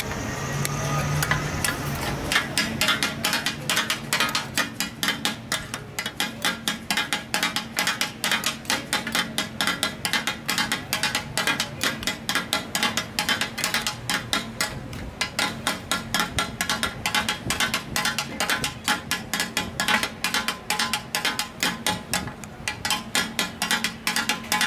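Steel spatulas rapped in a fast, even rhythm on a flat iron griddle (tawa), the clatter of taka tak being chopped, starting about two seconds in.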